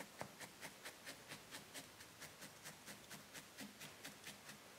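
Felting needle stabbing quickly and evenly into wool, faint soft ticks about four times a second, tacking a rolled piece of core wool onto a felted head.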